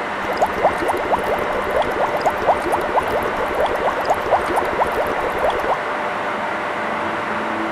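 Water rushing through the pipework and clear tubes of a water-treatment unit, with air bubbles gurgling in a quick run of short rising plops, about four or five a second, that stop near the end.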